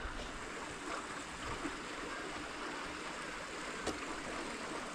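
Steady rush of running water, with one faint click about four seconds in.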